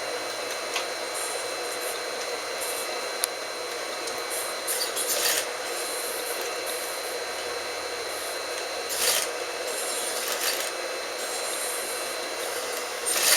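Fabric rubbing and being handled at a sewing machine, over a steady machine hum, with a few short louder rasping bursts.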